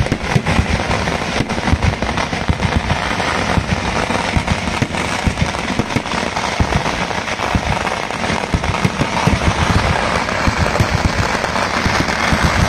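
Vedikkettu (Kerala temple-festival fireworks): a dense, unbroken barrage of firecracker and aerial-shell bangs, many a second, running together with no let-up.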